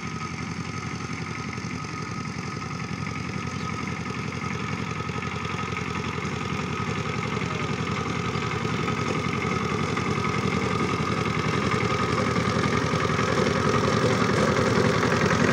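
Single-cylinder diesel engine of a walking power tiller running steadily while tilling soil, a rapid, even firing beat that grows louder as the machine comes closer.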